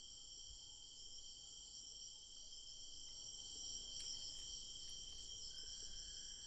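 Night chorus of crickets: a faint, steady, high-pitched chirring in several layers, with a lower insect tone joining near the end.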